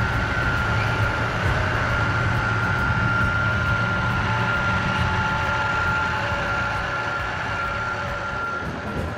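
Harsco MKVI rail tamper and ballast regulator moving along the track with their diesel engines running: a steady low rumble with a steady high whine over it that stops near the end.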